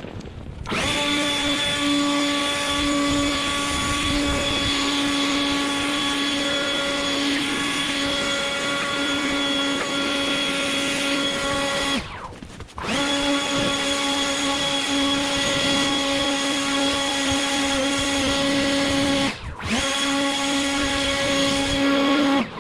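Handheld snow blower running at a steady, even whine, cutting off and starting again twice.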